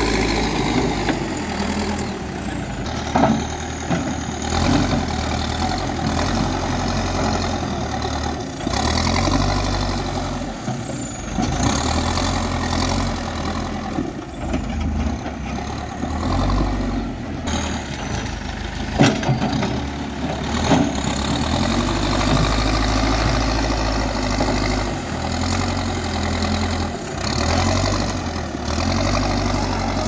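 Manitou TLB 844S backhoe loader's diesel engine running, its speed rising and falling several times as the loader works, with a couple of sharp knocks.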